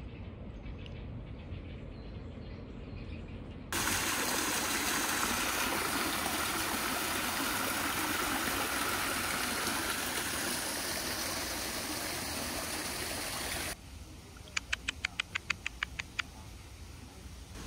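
Small garden waterfall splashing over rocks: a steady rushing that starts abruptly about four seconds in and cuts off about ten seconds later. Around it is faint outdoor background, and near the end a quick run of about a dozen short high notes.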